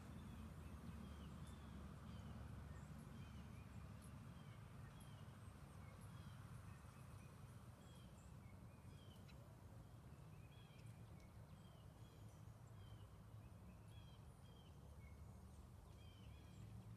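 Faint ambience of small songbirds chirping over and over, with short rising and falling calls, over a low steady rumble.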